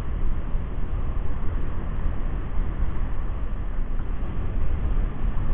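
Steady wind noise on the microphone, a low, fluttering rush.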